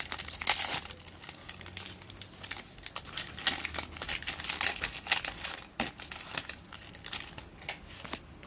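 Foil wrapper of a Panini Revolution basketball card pack crinkling as it is torn open by hand: a dense run of crackles, loudest in the first second.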